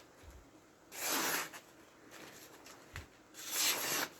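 An everyday pocket knife's blade making two slicing cuts in a sharpness test, each a short, noisy stroke: one about a second in, one near the end. A faint knock comes just before the second cut.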